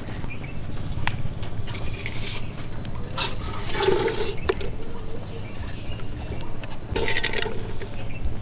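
Handling noises: a pot and plastic bottles being set down and arranged on the ground, with a few scrapes and knocks, the loudest about halfway through and again near the end, over a steady low hum.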